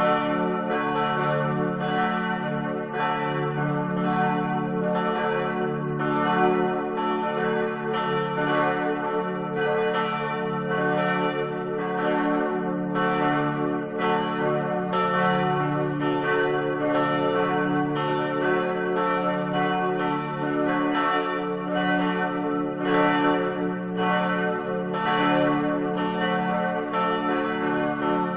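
Church bells ringing steadily: a new stroke about every three-quarters of a second, each ringing on over the last, so several pitches hum together the whole time.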